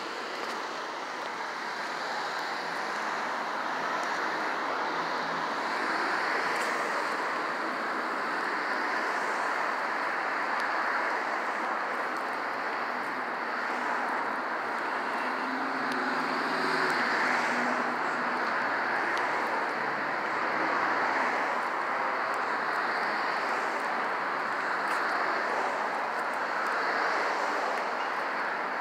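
City street traffic: a steady wash of road noise from passing cars that swells and fades every few seconds, with a low engine hum standing out about halfway through.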